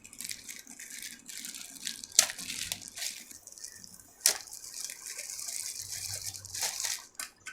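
Home theatre speakers being unpacked: packaging rustling and crackling as it is pulled off, with two sharp clicks about two and four seconds in.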